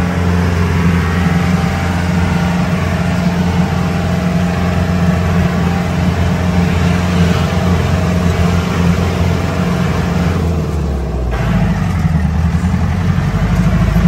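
Jeep engine running under load on a rough off-road track, heard from inside the vehicle; the engine note changes about eleven seconds in.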